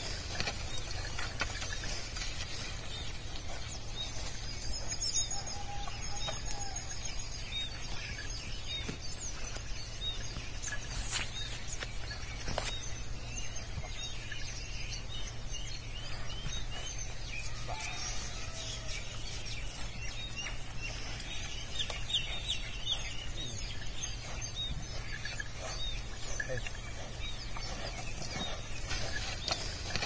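Small birds chirping again and again and domestic fowl clucking, over a steady low rumble, with two sharp clicks about halfway through.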